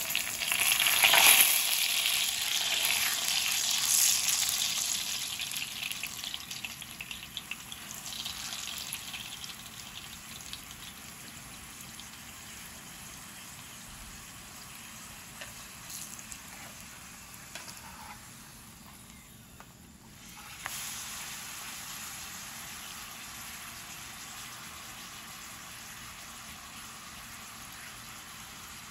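A tortilla sizzling and crackling as it fries in hot oil in a skillet. The frying is loudest for the first few seconds, then settles to a softer steady sizzle, with a brief lull about two-thirds of the way through before it picks up again.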